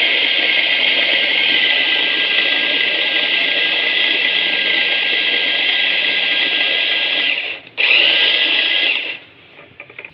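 Small electric push-top mini chopper coarsely grinding cooked chana dal. Its motor runs with a steady high whine, stops briefly, runs again for about another second, then cuts out with a few seconds left.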